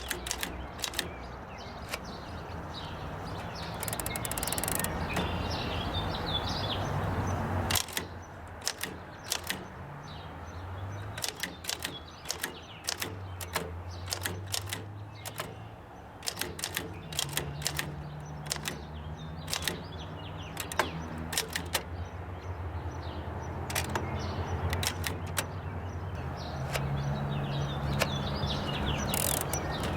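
1917 Oliver No. 9 typewriter being typed on: a run of irregular sharp clacks as the keys are struck, with short pauses between bursts of typing.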